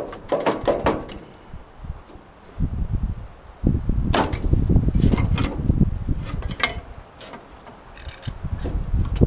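Sharp metal clicks and knocks of parts being handled and fitted on a Ford 8N tractor's engine, a few near the start and more scattered through the second half. A gusty low rumble of wind on the microphone runs through the middle.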